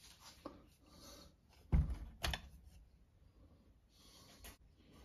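Two sharp knocks about two seconds in and a lighter click later on, as the hinged glass bezel on the front of a wooden mantel clock is opened and handled.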